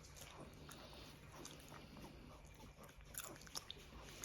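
Faint chewing and mouth smacking of a weak, paralysed dog being syringe-fed mashed, softened dog food, with small clicks as it bites at the syringe.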